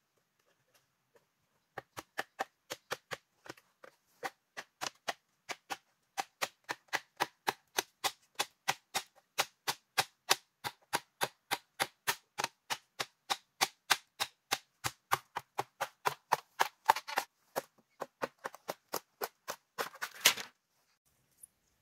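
Rapid, evenly spaced strikes of a hand tool on bamboo, as in bamboo-house building work, about four a second for most of the stretch. A short, rough burst of noise comes near the end.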